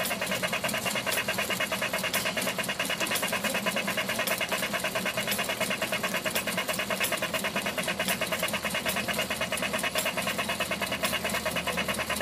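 Small machinery of an animated garden-railway model sawmill running: a rapid, even mechanical clatter that holds steady throughout.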